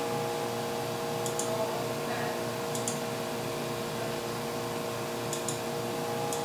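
Computer mouse clicking in short press-and-release pairs, a few times a second or two apart, over a steady background hum made of several fixed tones.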